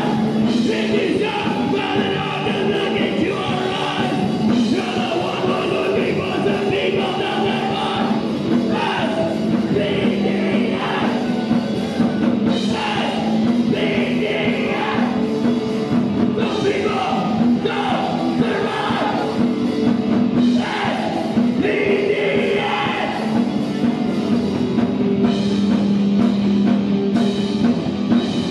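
Punk rock band playing live: a sung lead vocal over electric guitar and drums, loud and continuous.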